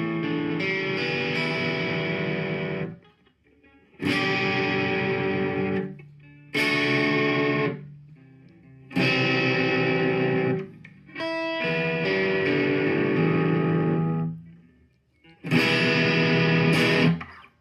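Guitar struck in six separate chords, each ringing for one to three seconds and then cut short, with brief pauses between them.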